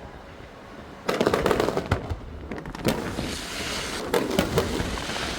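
Aerial fireworks bursting. A rapid volley of bangs starts about a second in, followed by scattered sharp cracks and a stretch of crackling.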